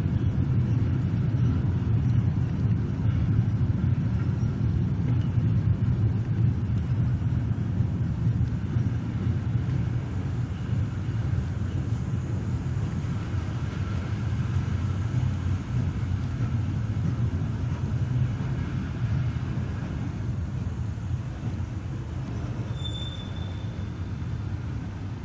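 Freight train wagons rolling past: a steady low rumble of wheels on rail that eases slowly in level as the train brakes, with a brief high squeal near the end.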